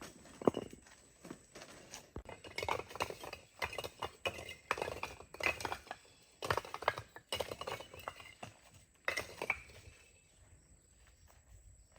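A string of irregular knocks, scrapes and clinks, like hands-on work with hard materials, which dies away about ten seconds in.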